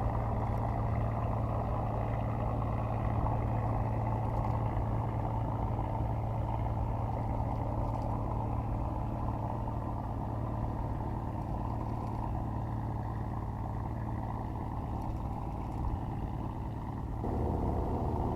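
An engine running steadily with a constant hum, its note changing abruptly about a second before the end.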